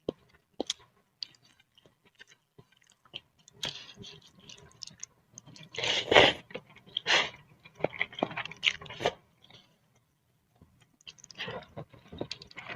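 Close-miked eating sounds of a person finishing a bowl of boiled instant noodle soup: scattered small mouth clicks and chewing, with a run of louder, denser eating noises about six to nine seconds in, then a short lull.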